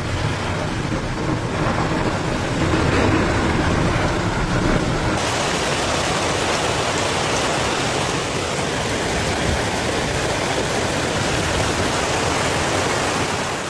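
Heavy storm precipitation pouring down, a dense, steady hiss of countless drops or stones striking surfaces, with no single impact standing out; its character shifts about five seconds in.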